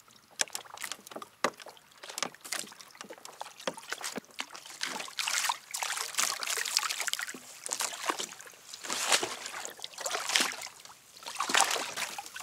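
Water splashing and sloshing at a fishing kayak: a run of small, sharp, irregular splashes and drips, with louder washes of splashing about five seconds in, again around nine to ten seconds, and near the end.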